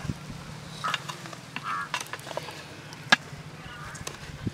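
A knife clicking and scraping against an aluminium steamer plate while steamed stuffed tomatoes are cut open, with one sharper click about three seconds in, over a low steady outdoor hum.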